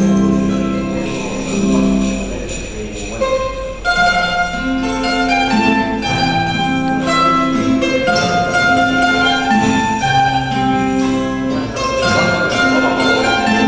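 A children's Christmas song played on acoustic guitar: a steady melody of held notes over a bass line.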